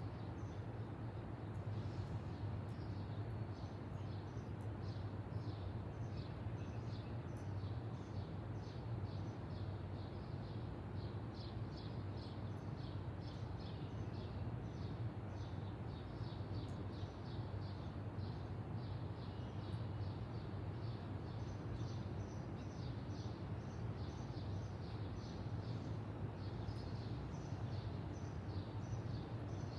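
Birds chirping in quick, short repeated notes, a couple a second, over a steady low hum.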